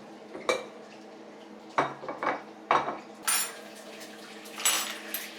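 Dishes and cutlery being handled and set down: a series of sharp clatters and knocks, then two bright, ringing clinks near the end.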